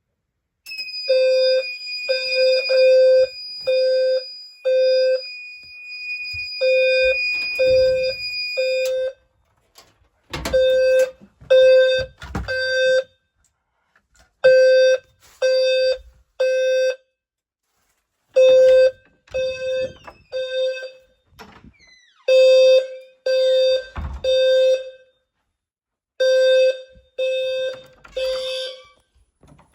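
Fire alarm sounding low-pitched beeps in a repeating pattern of three beeps and a pause, the temporal-three evacuation signal. For about the first nine seconds a steady high tone sounds along with the beeps, and a few dull thumps come in between.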